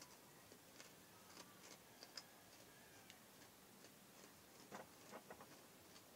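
Near silence with faint, irregular clicks: the soft mouth sounds and food handling of someone eating ripe mango slices, with a small cluster of clicks about five seconds in.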